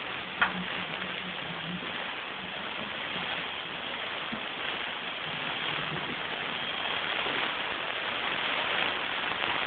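Dental handpiece with an acrylic bur grinding the edge of an acrylic temporary crown: a steady hissing grind, with a sharp click about half a second in.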